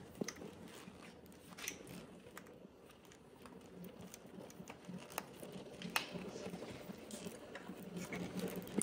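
Faint rubbing and a few small clicks of a rubber grommet, slick with spray, being pressed back into a motorcycle frame around its wiring.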